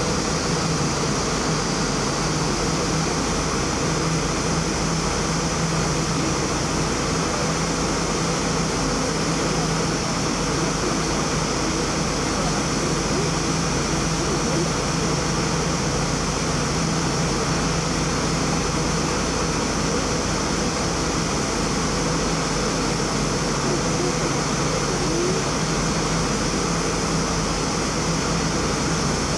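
Steady, unchanging background noise with a constant low hum, like distant engines or machinery running.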